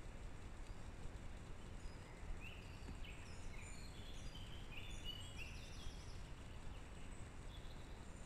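Small bird singing in a run of short, high chirping notes from about two to six seconds in, over a steady low rumble of background noise.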